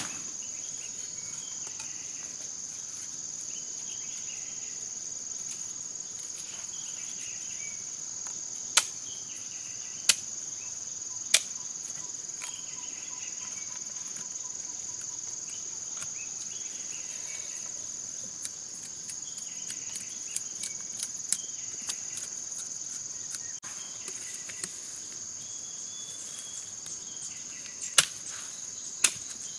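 Machete chopping giant taro: a few sharp single knocks, spread apart, with two close together near the end. A steady high-pitched insect drone runs underneath.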